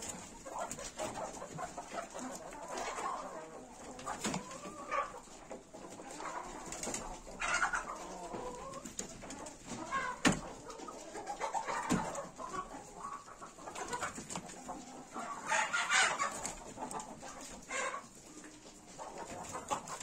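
Chickens clucking on and off, with a single sharp knock about halfway through.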